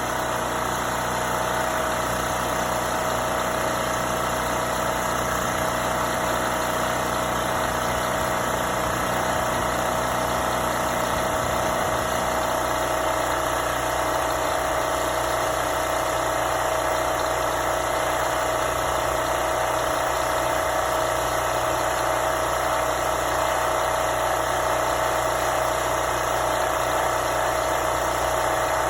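Champion portable generator's engine running steadily, its tone changing slightly about twelve seconds in, while the generator's output voltage is being adjusted.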